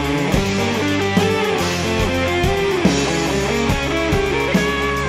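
Instrumental melodic rock/metal: electric guitar carrying a melody over bass, keyboards and a steady drum beat.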